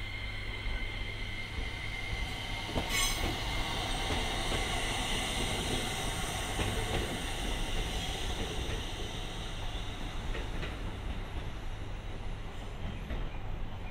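JR East FV-E991 hydrogen fuel-cell hybrid train moving slowly out over curved track, its wheels and drive giving a steady high whine over rolling noise. A single sharp clack about three seconds in, like a wheel over a rail joint. The high part of the sound thins out near the end as the train draws away.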